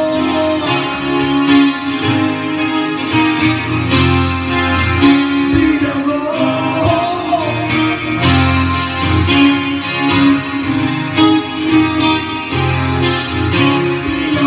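Acoustic guitar strummed steadily while a man sings into a microphone.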